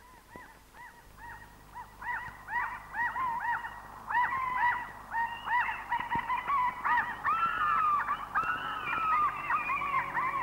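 A flock of seabirds calling over one another, many short arching calls repeated quickly. The calls fade in and grow louder and denser over the first four seconds.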